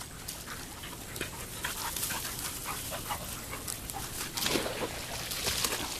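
A dog panting close by, with a short pitched vocal sound about four and a half seconds in.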